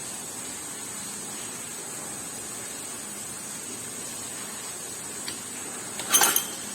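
Steady hiss of background noise, with a faint click about five seconds in and a short, loud clatter about six seconds in.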